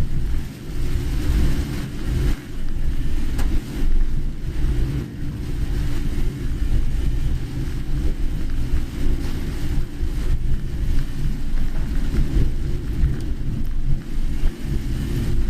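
Steady low rumble of a car driving in heavy rain, heard from inside the cabin, with tyres on the wet road and rain on the car making a hiss.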